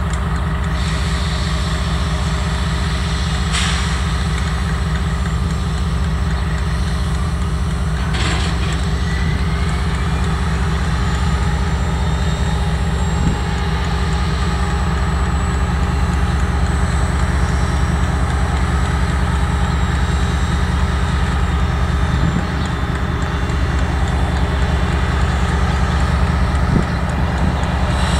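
KiwiRail DL-class diesel-electric locomotive idling while stationary, a steady low engine rumble throughout. Two short sharp clicks sound in the first ten seconds.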